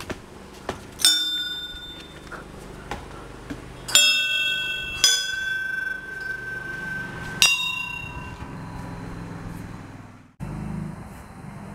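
Hanging brass temple bells struck four times, each stroke followed by a long ringing tone that slowly fades, two of the strokes about a second apart.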